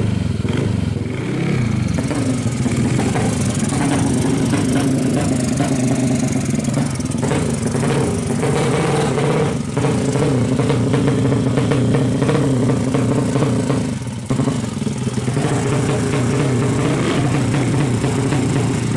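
Modified 200cc single-cylinder 'sleep engine' (horizontal-cylinder) drag bike engine running loud through an open exhaust. Its pitch rises and falls in the first couple of seconds, then holds fairly steady, and it cuts out briefly about three-quarters of the way through.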